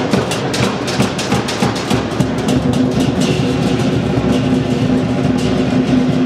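Lion dance percussion: a large Chinese drum beaten in a fast, steady rhythm with clashing cymbals, and a sustained ringing tone beneath the strokes.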